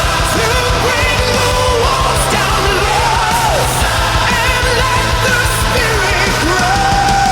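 Music with singing: a melody sung over a steady backing.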